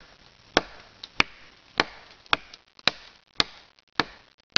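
A large chopping knife biting into a fallen tree trunk, about seven sharp chops at a steady pace of roughly one every 0.6 seconds.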